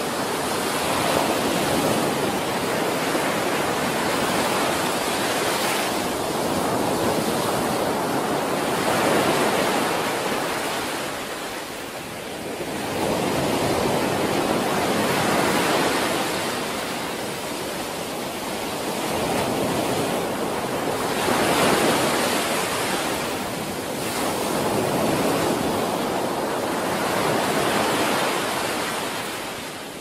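Ocean surf breaking on a sandy beach: a steady wash of noise that swells and eases every few seconds as each wave comes in.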